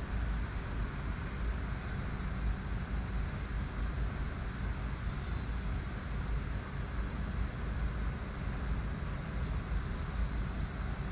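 Steady wind rumble buffeting the camera microphone, with an even hiss above it.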